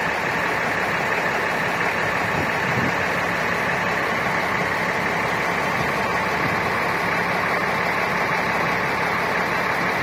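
Cummins turbodiesel in a 2011 Dodge Ram 2500, a 6.7-litre inline-six, idling steadily with no change in speed. It is running as a healthy engine should after a stock tune-up.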